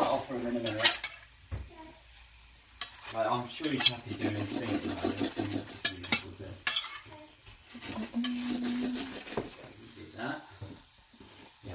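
Pork tsukune meatballs sizzling in their glaze in a stainless steel sauté pan. A slotted metal spatula turns them and scrapes and clicks against the pan a few times.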